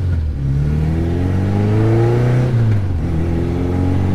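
Cushman kei mini truck's small engine revving hard under acceleration, heard from inside the cab. Its pitch climbs, drops at an upshift a little under three seconds in, then climbs again in the next gear.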